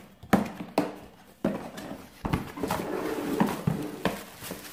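Cardboard box flaps being pulled open: a few sharp snaps and scrapes of cardboard, then a stretch of rustling as the packaging inside is handled.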